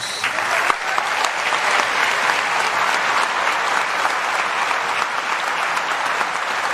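A large audience in a concert hall applauding, steady dense clapping that starts right after the speaker's last sentence and keeps going.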